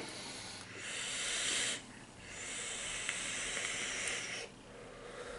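Two hisses of air pulled through an electronic cigarette mod's atomizer as it is puffed, the first about a second long, the second about two seconds.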